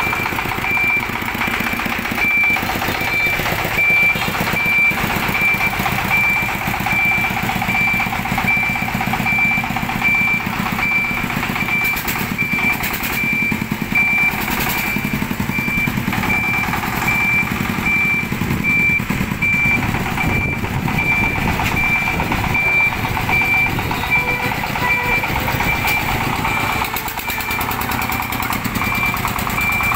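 Single-cylinder diesel engine of a farm-tractor truck running steadily, with an electronic beeper on the vehicle sounding an evenly pulsing high beep over it.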